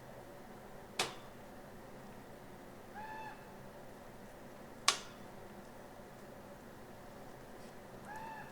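A wolf's short whines, each briefly rising and falling in pitch: one about three seconds in and another near the end. Two sharp clicks come about a second and about five seconds in, the second the loudest sound.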